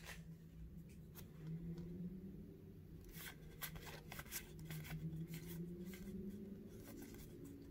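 Hockey trading cards flipped through by hand: faint, scattered flicks and slides of card stock against card.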